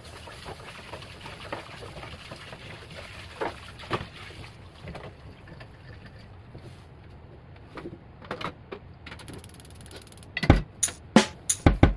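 Food frying in a pan over a gas burner: a steady sizzle with scattered clicks and knocks of a utensil against the pan. A drum beat comes in near the end.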